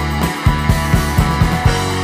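Background rock music with a steady beat of about four drum hits a second.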